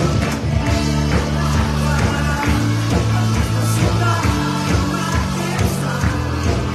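Live band music with singing: a steady bass line and drums under the voices.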